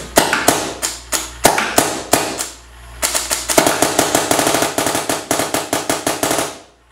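Paintball gun firing reballs, soft rubber reusable paintballs: a string of single shots about three a second, then a rapid burst of roughly three and a half seconds that stops abruptly near the end.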